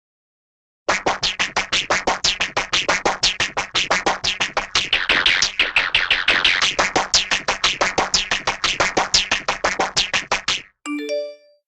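Cartoon sound effect: a fast, even train of short scratchy strokes, about five a second, lasting roughly ten seconds and stopping abruptly, then three short notes rising in pitch.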